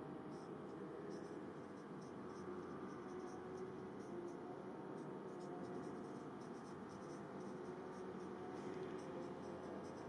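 Marker pen writing on a whiteboard: a steady run of faint, short strokes as words are written out.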